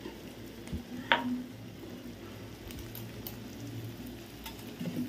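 Chopped onions and chicken liver sizzling in a stainless steel pan while being stirred with a spoon, with one sharp tap of the spoon on the pan about a second in.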